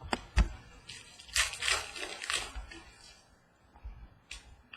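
Trading cards and their wrapper being handled: two sharp knocks, then a crinkling rustle lasting about a second, then a few light clicks.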